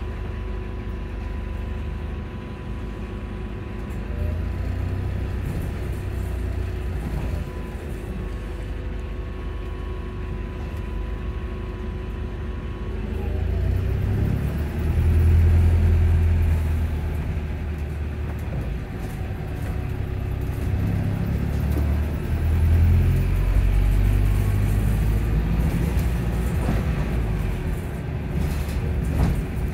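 Volvo hybrid bus drivetrain heard from inside the passenger saloon: a low rumble with a steady hum, growing louder about halfway through and again later on.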